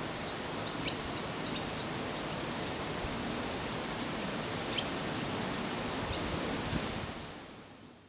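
Steady outdoor background hiss with many short, high chirps of other birds calling through it, all fading out over the last second.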